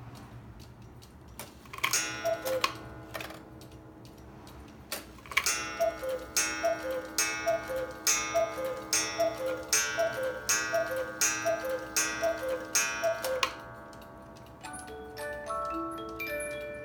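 Mechanical cuckoo clock striking the hour: the cuckoo's falling two-note call sounds once, then after a pause about ten more times at an even pace, each call with a ringing gong strike, over steady ticking. Near the end the clock's music box starts playing a tune.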